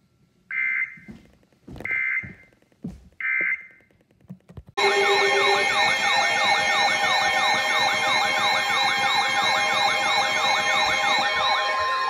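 Three short bursts of warbling data tones, an EAS alert header, then about five seconds in a loud layered wail of several sirens rising and falling over steady alarm tones, announcing an emergency alert.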